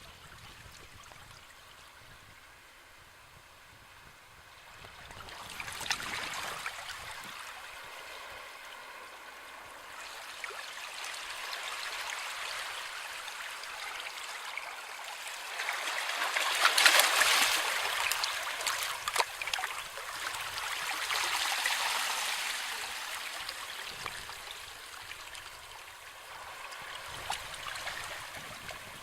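Sea waves washing onto the shore: a hiss that swells and fades five times, with a fine crackle at each peak. The loudest wave comes about seventeen seconds in.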